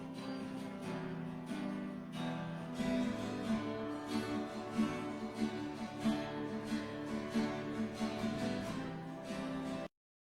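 Instrumental worship music led by a strummed acoustic guitar, with sustained notes underneath. It cuts off abruptly to silence near the end.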